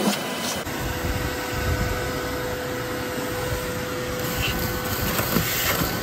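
Vacuum running steadily with its hose sucking up dirt and rotted wood debris from a boat's deck compartment, with a steady hum through most of it and a few faint ticks of debris.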